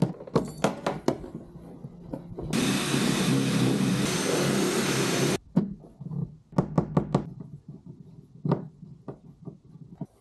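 Cordless drill running steadily for about three seconds during the fitting of a new deck hatch, stopping suddenly. Scattered sharp clicks and knocks of the hatch fittings being handled come before and after it.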